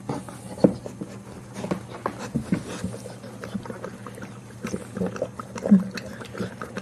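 A whelping pit bull licking her newborn puppy, still in its birth sac: irregular wet licking sounds mixed with a few short low noises from the dog. The loudest comes about a second before the end.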